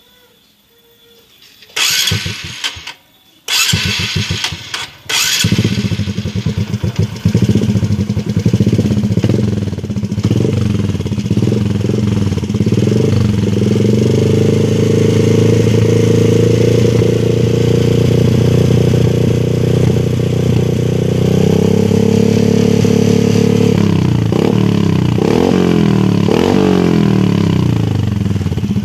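Honda Supra X 125 single-cylinder four-stroke engine breathing through a loud aftermarket racing exhaust. After two short start attempts the engine catches about five seconds in and idles unevenly. It is then held at higher revs for several seconds and blipped up and down several times near the end.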